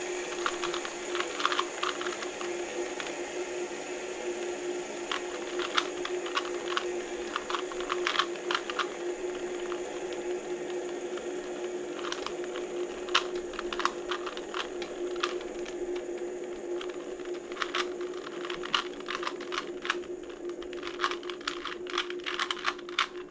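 Rubik's cube being turned fast, its plastic layers clicking in irregular flurries, with a steady hum underneath.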